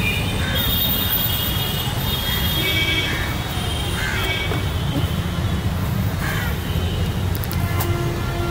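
A bird calling several times in short calls over a steady low rumble.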